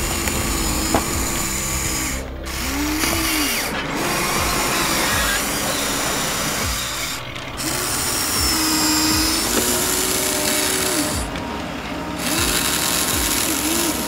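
Huina remote-control toy excavator's small electric motors whirring in short spells, the pitch rising and falling as the arm and cab move, over a steady hiss.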